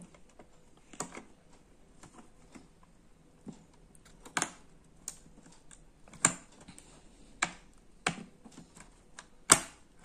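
Small sharp clicks and taps, irregularly spaced, as a laptop RAM module is worked into its memory slot. The loudest click comes near the end, when the slot's retaining latch snaps shut on the seated module.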